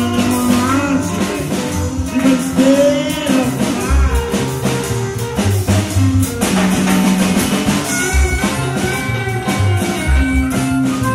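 Live blues-rock band playing, with electric guitar to the fore.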